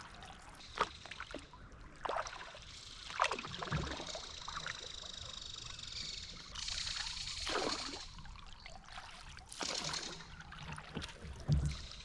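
Canoe paddles dipping and pulling through river water, with a splash and drip every second or two over a steady faint hiss.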